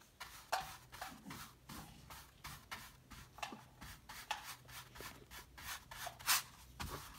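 Wide flat paintbrush scrubbing back and forth over a stretched canvas, blending wet acrylic paint: a run of short scratchy strokes, about two a second, the loudest a little after six seconds in.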